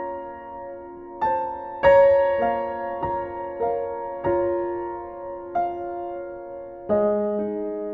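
Background music: a slow, gentle piano melody, single notes struck and left to ring away.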